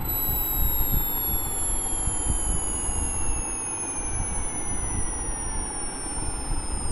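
Hearing-test sine tones gliding slowly downward in pitch, the loudest starting very high, with several fainter tones falling alongside, over a steady low rumble.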